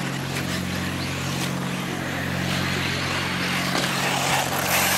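1/8-scale electric RC buggies running on a dirt track, their motor and gear whine and tyre noise growing louder about halfway through, over a steady low hum.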